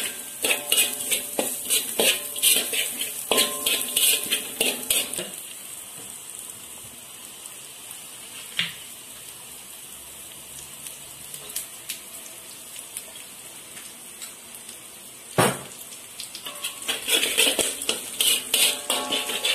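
Metal spatula scraping and clanking against a wok while onion, garlic and dried shrimp sizzle in oil. A quick run of ringing clanks for about five seconds gives way to a quieter stretch of steady sizzling, broken by one sharp knock, and the clattering stirring starts again near the end.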